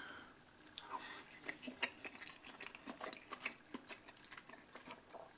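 A person chewing a mouthful of soft filled pancake with vanilla sauce: faint, irregular little clicks and smacks of the mouth.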